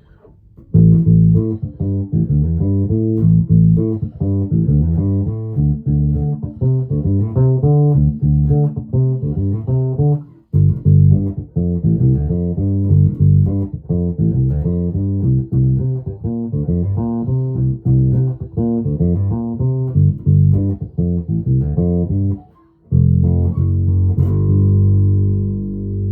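1996 Alembic Epic four-string electric bass played solo through its neck pickup with the bass boosted about halfway: a busy run of plucked notes with two brief breaks, ending on a long held note that rings on.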